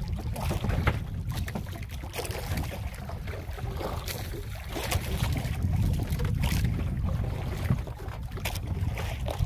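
Wind rumbling on the microphone aboard a small wooden outrigger boat under way at sea, with scattered clicks and knocks.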